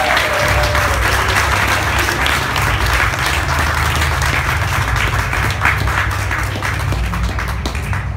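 Wedding guests applauding: dense hand clapping that thins out and fades near the end.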